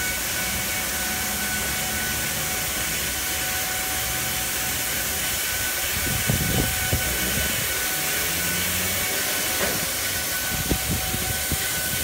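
Oasis XP in-bay automatic car wash spraying pre-soak onto an SUV from its moving nozzle arm: a steady hiss of spray over a faint steady whine, with a few low thumps about six seconds in and again near the end.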